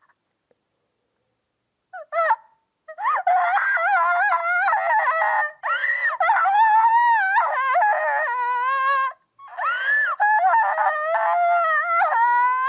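Little Miss Calamity, a cartoon character, crying: very high-pitched, wavering wails and sobs in long drawn-out cries. A brief cry comes about two seconds in, and there is a short break about nine seconds in.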